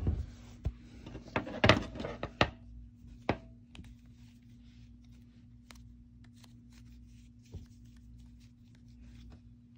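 Knitting loom being worked by hand as loops are lifted over its pegs: a cluster of sharp clicks and knocks in the first three seconds or so, then faint scattered ticks.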